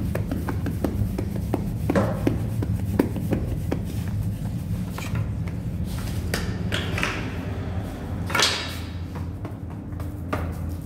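Bread-making at a tandoor: a run of light taps and knocks over a steady low hum, most of the taps in the first few seconds, with a short rushing sound about eight seconds in.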